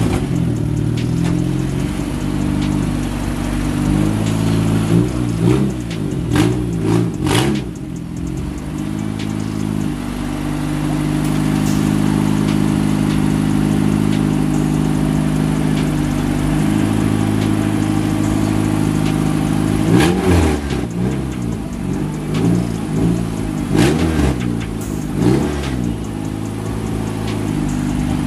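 Turbocharged Honda Civic four-cylinder engine idling, blipped through a few quick revs about five seconds in and again about twenty seconds in, holding a steady idle in between.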